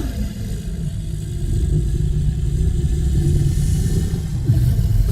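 Deep, steady low rumbling growl, a made-up Spinosaurus creature sound effect.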